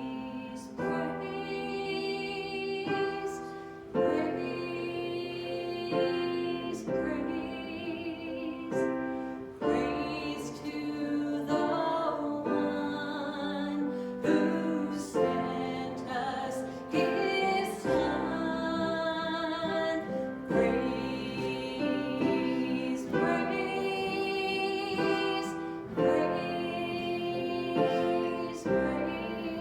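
Church worship music: held chords on piano or keyboard under a sung melody, with sharp accents every few seconds.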